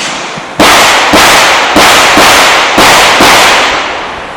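Six handgun shots in quick succession, about half a second apart, each followed by a short ringing echo.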